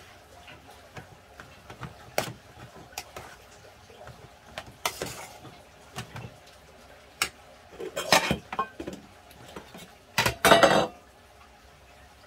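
Eating utensils clinking and scraping against a pot and dishes: scattered light clicks, a short scrape about five seconds in, a cluster of knocks around eight seconds, and two loud ringing scrapes near the end.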